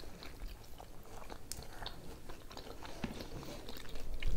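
People chewing potato wedges and nuggets: soft, wet mouth sounds with scattered small clicks and faint crunches. A dull low bump comes near the end.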